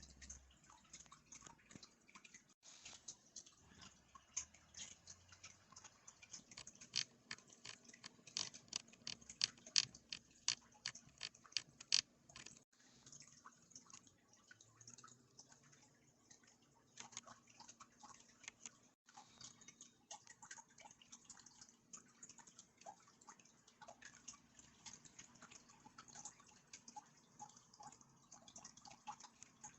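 Typing on a Roccat Pyro mechanical keyboard: a steady stream of quick key clicks and clacks. The keystrokes come thickest and loudest in the middle stretch.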